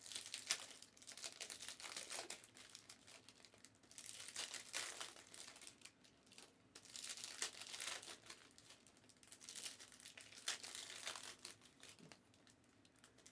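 Faint crinkling and rustling of plastic packaging being handled, in four short spells with pauses between.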